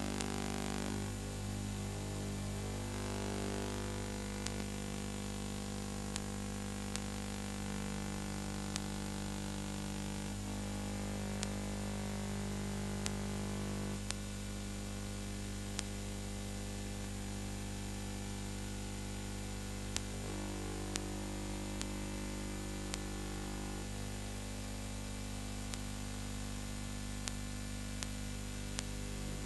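Steady electrical hum and hiss with short clicks every second or two, the background noise of a silent film's transfer rather than any sound from the scene.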